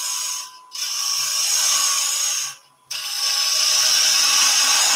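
Spindle gouge cutting a small tulipwood blank spinning at fairly high speed on a wood lathe, a steady hissing cut as a small dome is shaped. The cut breaks off briefly twice, about half a second in and again at about two and a half seconds.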